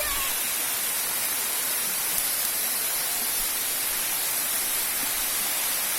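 Waterfall's rushing water: a steady, even hiss.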